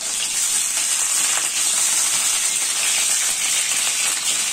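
Pointed gourd pieces sizzling steadily as they fry in hot mustard oil in a steel wok, while a steel spatula turns them over with a few light scrapes.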